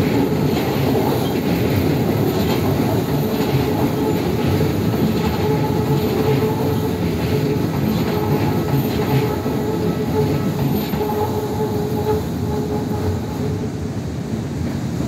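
Keisei 3000 series electric train crossing a steel truss railway bridge: a steady rumble and clatter of wheels on the bridge, with a thin steady whine through the middle. The sound eases a little near the end as the last cars clear.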